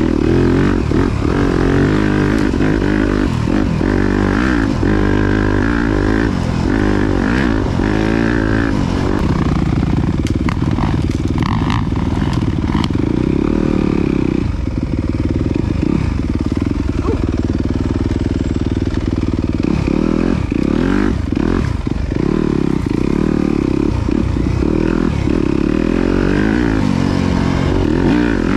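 Dirt bike engine running hard on a trail, its pitch rising and falling as the throttle opens and closes, with scattered knocks and clatter from the bike over rough ground.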